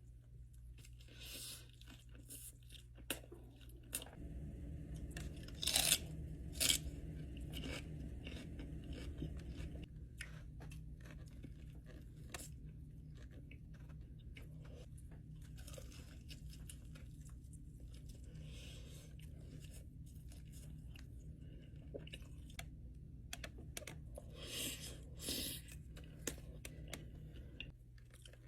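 Close-up eating sounds of Wingstop fried chicken: crisp crunching bites, chewing and tearing of the meat, loudest in a couple of bursts, over a steady low hum.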